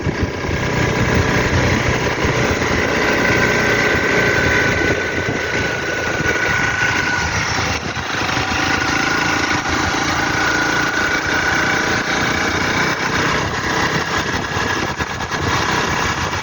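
Honda CRF300 Rally's single-cylinder engine running under way, its revs slowly rising and falling.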